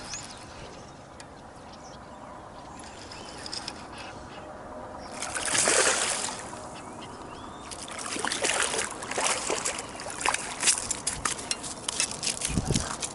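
Water splashing and sloshing as a hooked striped bass thrashes while it is landed, with one loud splash about five seconds in and a run of short slaps and splashes over the last few seconds.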